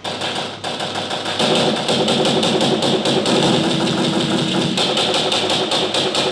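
Several sound effects layered on separate audio tracks and played back together: a loud, dense mechanical clatter of rapid knocks over a steady running sound. It fills out about a second in.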